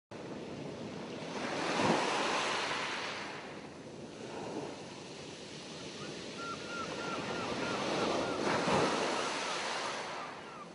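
Small waves washing up over a sandy shore and draining back, the surf swelling about two seconds in and again near nine seconds.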